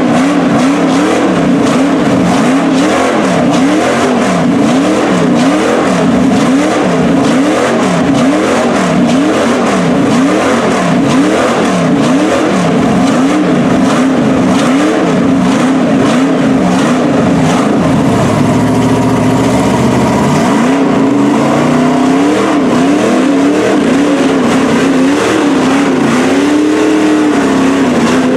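LS-powered Chevy mud truck's V8 revving up and down in a steady rhythm, more than once a second, as its tires spin in deep mud. Later the swings slow and widen.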